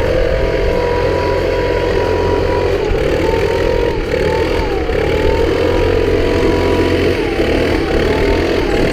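Car driving along a road, with steady engine and road rumble and a thin whine that dips in pitch now and then.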